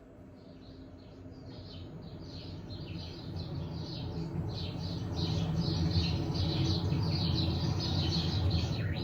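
A dense chorus of bird chirps over a low steady drone, the whole fading in and growing louder.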